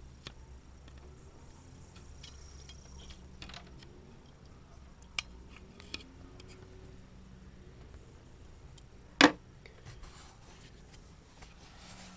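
Small clicks and light metallic handling of the intake flap actuator parts as they are fitted by hand, with one sharp loud click about nine seconds in, over a low steady hum.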